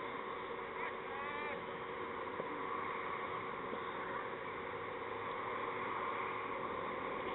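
Steady open-air background noise from a field-side microphone, with a few faint chirps about a second in.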